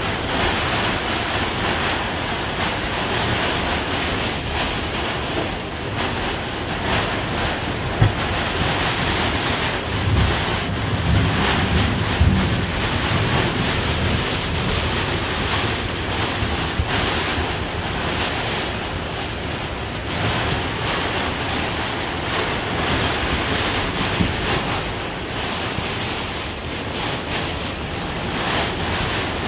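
Storm-force wind and heavy rain beating on a sailboat's clear vinyl cockpit enclosure: a steady rush of noise that swells and eases with the gusts, heavier and lower for a few seconds about ten seconds in. A single sharp knock sounds about eight seconds in.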